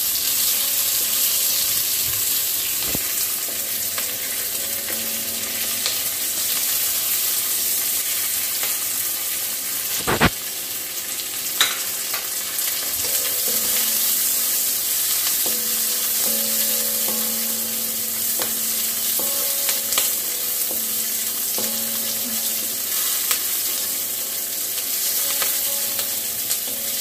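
Chopped onion, capsicum and green chilli sizzling on high flame in a metal kadai, stirred continuously with a metal spatula that scrapes against the pan, with a couple of sharp knocks of the spatula on the pan near the middle.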